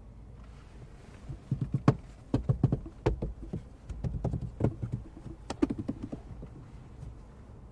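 Knuckles or fingers tapping and knocking on the Suzuki Swift's interior plastic trim, checking its quality. The knocks come in about four quick clusters of several hard taps each.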